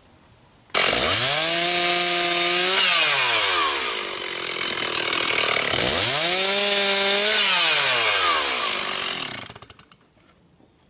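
Stihl 360 two-stroke chainsaw on a mini chainsaw mill, cutting along a log. It comes in suddenly, revs up and holds high twice with a dip in pitch between, and drops away near the end.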